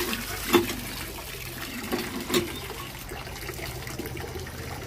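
Water gushing from a hand pump's spout into a steel bowl as fish are rinsed under it, with a few sharp knocks from the pump as its handle is worked.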